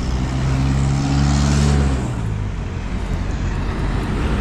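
A motor vehicle's engine droning close by on a busy road, loudest about a second and a half in and dropping slightly in pitch as it fades into general road traffic noise.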